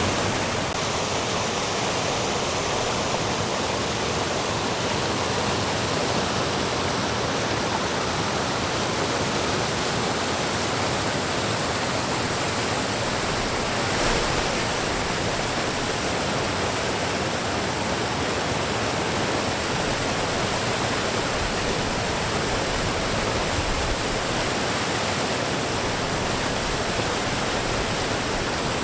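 Waterfall: water rushing steadily over the falls, a dense, even roar that holds unchanged throughout.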